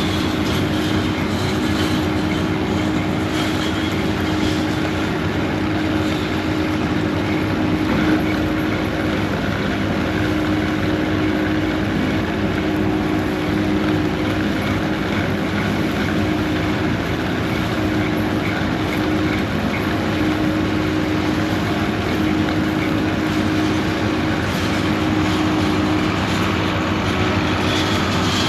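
Heavy diesel engine of the field machinery running at a steady, unchanging speed, a continuous drone with no change in pitch.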